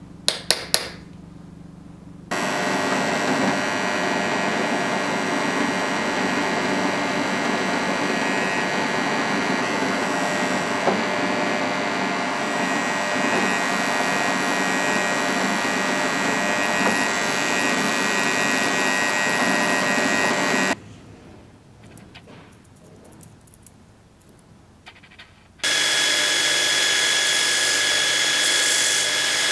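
Three sharp metal taps in the first second, as a punch marks the steel plate, then a drill press running steadily while it drills through the steel plate for about eighteen seconds. After it stops and a few light clicks follow, a belt grinder starts up near the end and runs with a steady high whine.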